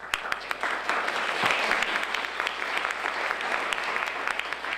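An audience applauding: a dense, steady clatter of many hands clapping that starts suddenly.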